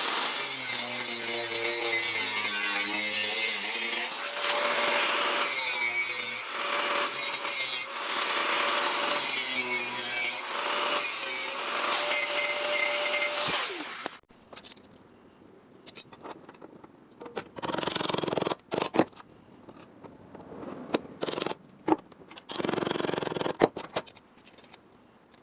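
A power tool runs loudly in several long stretches as it cuts or grinds sheet steel, its motor tone steady under the noise. About fourteen seconds in it stops, and short separate scraping strokes and clicks follow.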